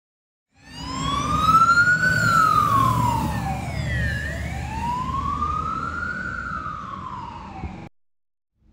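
Fire engine's wailing siren, its pitch rising and falling slowly twice, over the rumble of the truck's engine. The sound cuts off suddenly near the end.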